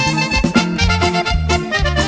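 Recorded Latin band music in an instrumental passage without singing: a lead melody over a bass line and a steady beat.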